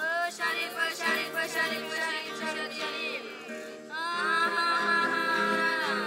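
A song in the style of Indigenous Amazonian forest chants: singing over a nylon-string acoustic guitar. The voice slides up into a long held note about four seconds in, then falls away near the end.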